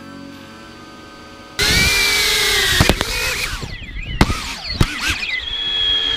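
Reptile Cloud 149 HD cinewhoop's brushless motors and props spinning up hard about a second and a half in after a quieter start, the whine rising and falling with throttle, with a few sharp clicks, then settling into a steady high whine. Heard from the camera riding on the drone.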